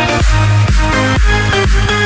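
Electronic dance music with a steady beat of about two beats a second and heavy bass.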